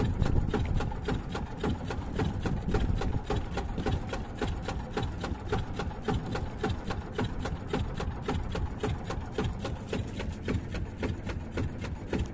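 Small fishing boat's engine running steadily with a rapid, even chugging beat.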